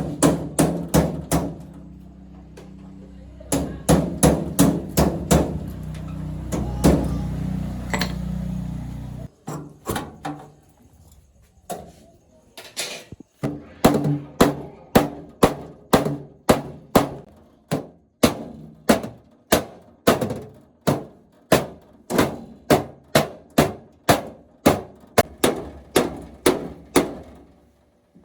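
Repeated hammer blows, sharp and ringing a little, irregular at first over a low steady hum, then after a short pause settling into an even run of about two blows a second.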